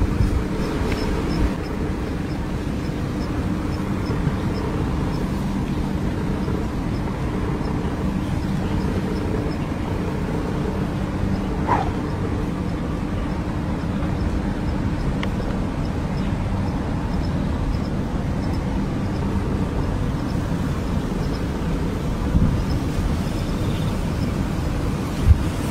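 Steady low outdoor rumble by the water, with a faint hum in the first half and a few faint ticks.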